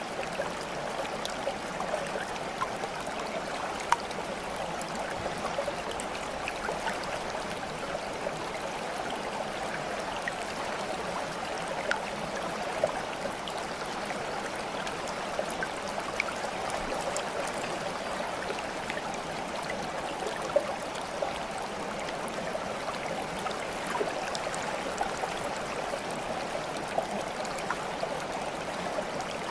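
Steady running water, like a babbling stream, with scattered small splashes and drips.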